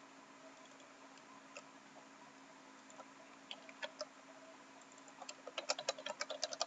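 Typing on a computer keyboard: a few scattered keystrokes, then a quick run of key clicks in the last couple of seconds, over a faint steady hum.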